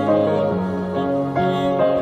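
Slow, gentle instrumental music of a worship song, with held chords that change about every half second.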